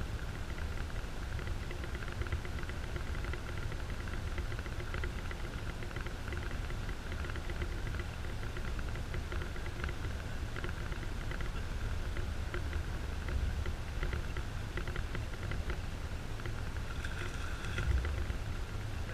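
SeaArk aluminum fishing boat moving slowly under motor: a steady motor hum with water pattering and slapping against the hull, and a low wind rumble. A louder splash against the hull comes near the end.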